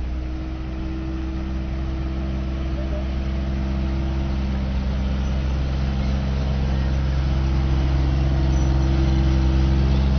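Engine of a WWII US half-track running steadily as the vehicle drives slowly past close by, growing louder as it approaches.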